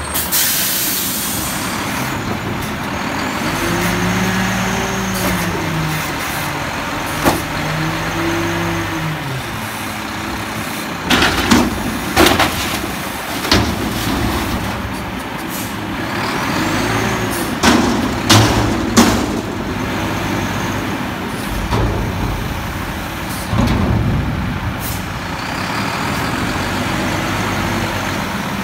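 Mack front-loader garbage truck lifting and emptying a steel dumpster. A sharp air hiss right at the start, then the diesel engine revving up and down as it drives the hydraulic lift arms. A series of loud metallic bangs comes in the middle, as the dumpster is tipped and shaken out over the top of the truck.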